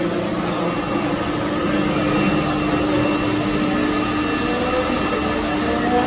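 Steady mechanical drone with a constant low hum, from the garage machinery around a parked Formula 1 car.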